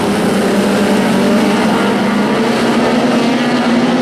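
Engines of a pack of lightning sprint cars running together on a dirt oval: a loud, steady, overlapping engine note whose pitches waver slightly.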